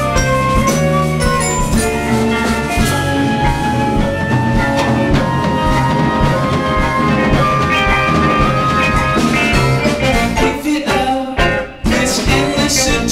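Live band playing an instrumental passage: ringing mallet notes of a vibraphone over bass and drums. Near the end a run of drum hits leads into a brief break, and the band comes straight back in.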